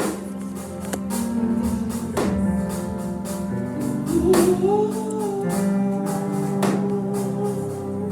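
Gospel worship music: sustained chords that change every second or two, with scattered percussion hits. From about four seconds in, a voice holds a long, wavering note over it.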